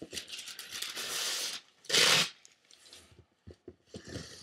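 Paper and packing tape being handled on top of a cardboard shipping box: rustling and crinkling, a short loud tearing sound about two seconds in, then light scratches and taps of fingers on the cardboard.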